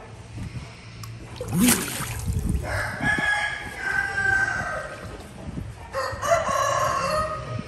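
A rooster crowing twice, each crow a long pitched call of about two seconds, after a brief sharp noise near the start.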